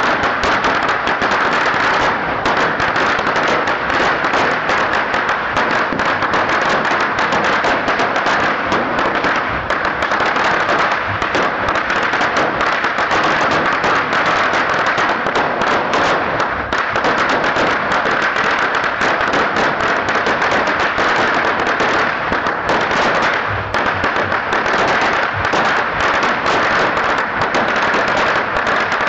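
A long pagara, a Surinamese string of firecrackers, going off in an unbroken, rapid crackle of bangs.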